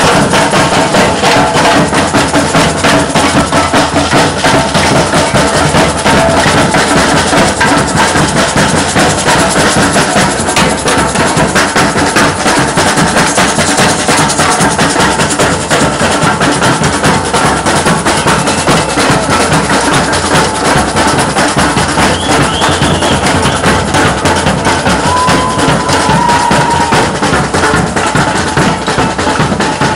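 Batucada samba percussion band playing: surdo bass drums and snare drums pounding out a loud, dense, driving rhythm.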